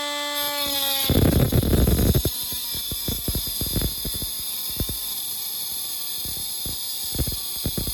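Mini cordless 12-volt brushless angle grinder whining steadily at free speed, then about a second in its cutting disc bites into a thin metal pipe with a loud grinding burst. It then settles into a steady cut: a high hiss of abrasive on metal with quick rattling ticks.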